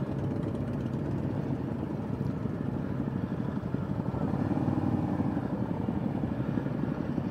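Motorcycle engine, the 865cc parallel twin of a 2015 Triumph America cruiser, running at low revs with a steady low rumble as the bike rolls slowly, heard through a helmet cheek-mounted microphone.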